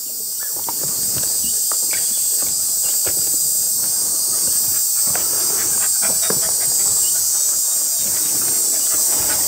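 A steady, high-pitched chorus of insects, with faint scattered footsteps and rustles on dry ground.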